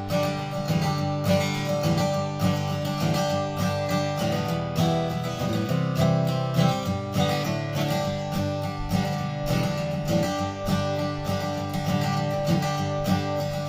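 Seagull SWS mahogany acoustic guitar, freshly strung with Martin Retro Monel strings, played in strummed chords with a steady run of strokes.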